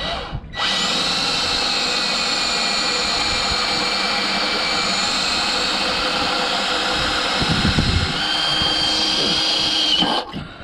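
Cordless drill running steadily as its bit cuts a hole through the metal beam of a boat lift. The whine shifts pitch about eight seconds in, and the drill stops just before the end.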